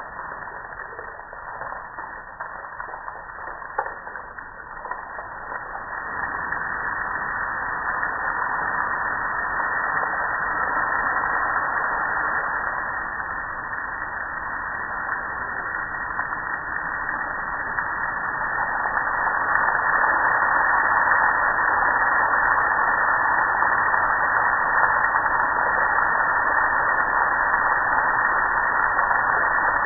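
Water spraying and splashing over a metal gas grill in a steady hiss, growing louder about six seconds in and again near twenty seconds.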